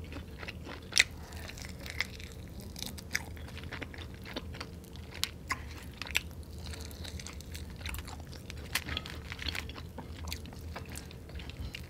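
Close-miked chewing and biting of sauced fried chicken wings: wet mouth sounds with scattered sharp crunchy clicks.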